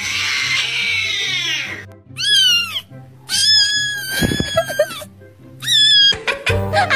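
Cat meme sound clips: a long raspy cat cry, then three separate meows, the middle one drawn out. Under them runs a background music track with a repeating low bass line.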